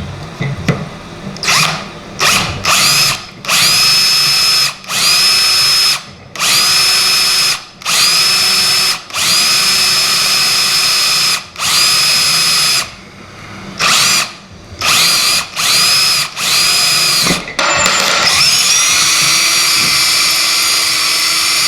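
Drill run in repeated short bursts, each rising in pitch as it spins up and then holding steady, while drilling a hole; a longer unbroken run comes near the end.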